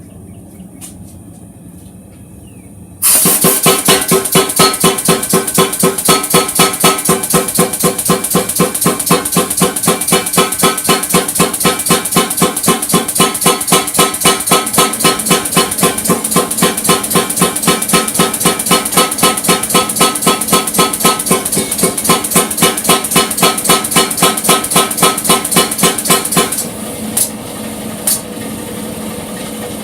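Power hammer pounding a quarter-inch knife blank in a fast, even rhythm of about four blows a second, stretching the stock out into the blade. About three seconds in the blows start suddenly; near the end they stop and the hammer keeps running with a lower steady sound and two short clanks.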